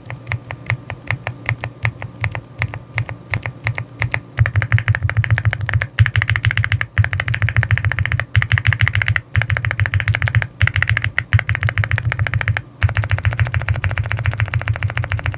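Typing on a Rainy75 aluminium mechanical keyboard: separate keystrokes at an even pace, then fast, dense typing from about four seconds in, with a few short pauses.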